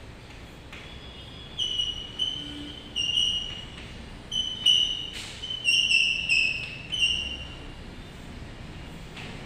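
Chalk squeaking against a blackboard as words are written: a run of about eight short, high squeaks starting about a second and a half in and stopping after about seven seconds, with a faint chalk tap before them.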